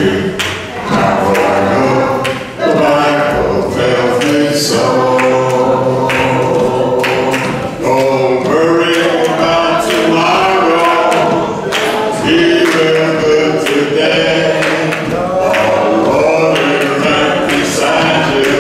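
A group of voices singing a hymn together in a church, with frequent sharp beats throughout.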